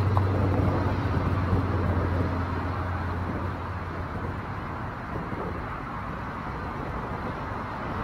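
Road traffic: a passing vehicle's low, steady engine hum that fades away about halfway through, over a general outdoor rush.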